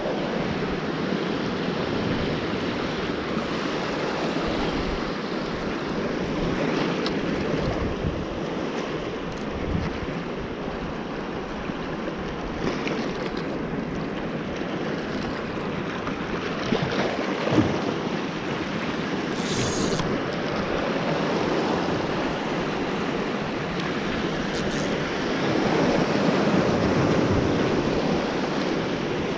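Small waves washing and breaking over a rocky shore platform, with wind buffeting the microphone; the surge grows louder near the end. One sharp tap just past halfway.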